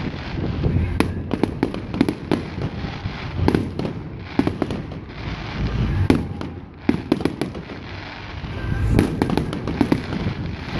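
Fireworks display: aerial shells bursting in a rapid run of bangs and crackles. The bangs thin out for a moment past the middle, then pick up again.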